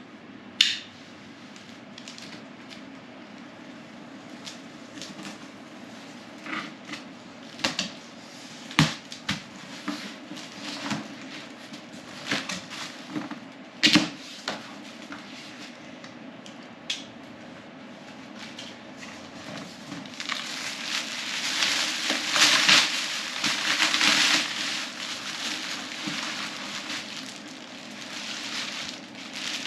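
A cardboard shipping box being opened by hand: scattered knocks, scrapes and clicks of flaps and tape, then a few seconds of louder rustling of packing material about two-thirds of the way in.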